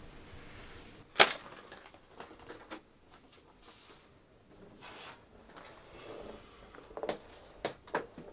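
Quiet room tone with a sharp knock about a second in, then scattered soft rustles and ticks, and three smaller knocks near the end.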